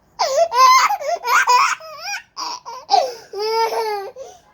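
Baby laughing: several short, high-pitched bursts of laughter with swooping pitch, then a longer, pulsing laugh about three seconds in.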